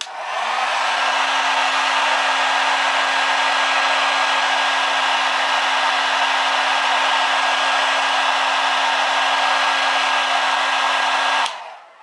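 Handheld blow dryer fitted with a narrow concentrator nozzle running steadily, a rush of air over a low steady hum and a faint higher whine. It comes up to speed at the start and cuts off suddenly shortly before the end.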